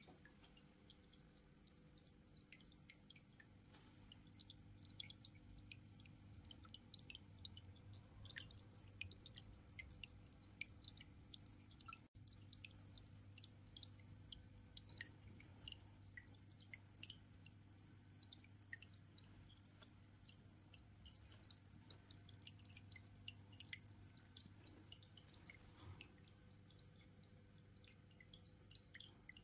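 Faint aquarium water sounds: a scatter of small irregular drips and bubble pops at the water surface from the tank's filters, over a low steady hum.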